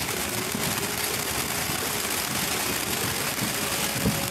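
Ground fountain firework spraying sparks, a steady rushing hiss with irregular crackles and one sharper pop near the end.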